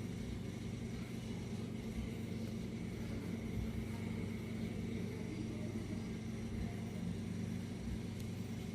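A steady low mechanical hum with no change in pitch or level, like a small motor or fan running.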